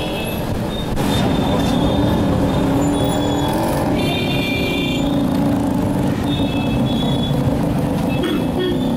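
Dense road traffic: motorcycle and car engines running as a crowd of vehicles crosses the railway tracks. Short high-pitched horn toots sound over it several times. The engine noise swells about a second in.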